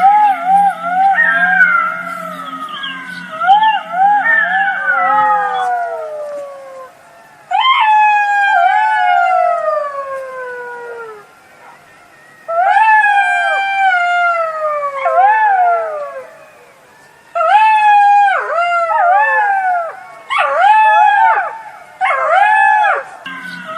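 Jackals howling in chorus: several overlapping wailing voices that waver and slide down in pitch, mixed with short yips. The calls come in bouts of a few seconds, with brief gaps between them.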